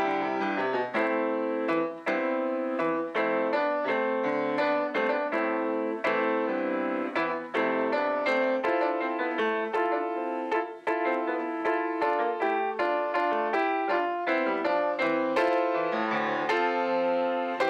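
Solo grand piano playing a flowing piece, with a quick succession of notes, several a second, over held chords.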